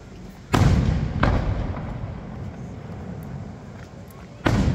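Aerial firework shells bursting overhead: a loud bang about half a second in, a second one soon after, and a third near the end, each trailing off slowly.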